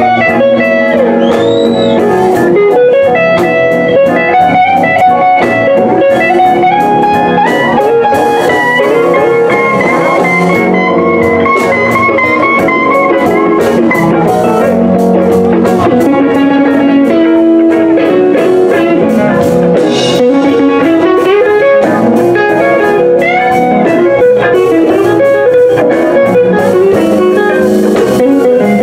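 Live blues band playing, with an electric guitar taking the lead in bent, sliding notes over drums and bass.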